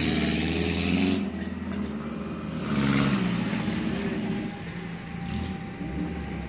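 Small four-wheel-drive off-roader's engine revving up and down, in low range, as it pushes through a muddy water crossing. It is loudest in the first second and surges again around three seconds in.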